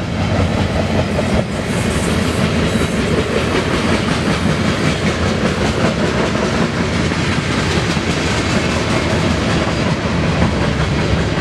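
A BNSF freight train rolling past close by: a steady, loud rumble of rail cars with the clatter of steel wheels on the rails.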